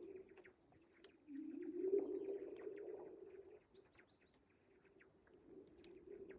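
Spring lake ice singing: a low, moaning hum that swells about a second in and dies away a couple of seconds later, over many small ticks and tinkles and one sharp crack from the ice cover breaking up.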